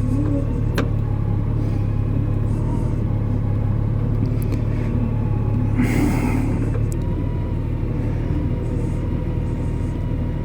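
2003 Honda Gold Wing's engine idling with a steady low rumble. The bike has a misfire and keeps setting a knock sensor code, which the owner suspects comes from a faulty ECM.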